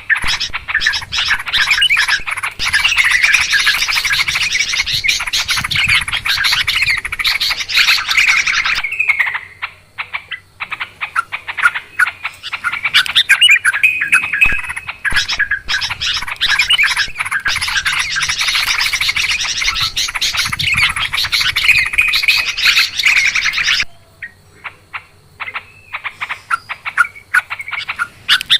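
Yellow-vented bulbuls (trucukan) chattering noisily, many birds calling over one another in dense runs of bubbling notes. The chorus thins to scattered calls about nine seconds in and again near the end.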